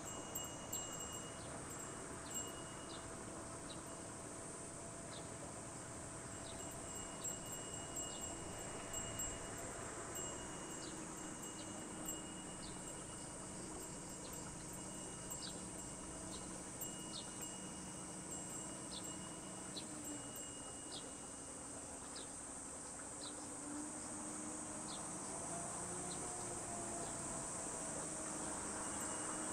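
Insects buzzing steadily in a high-pitched drone, with short high chirps scattered through and a faint low steady hum underneath.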